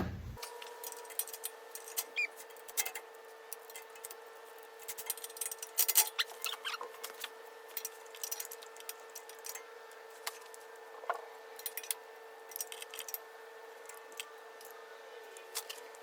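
Scattered light clicks and clinks of hand tools at work, irregular and unevenly loud, the sharpest about six seconds in, over a steady hum.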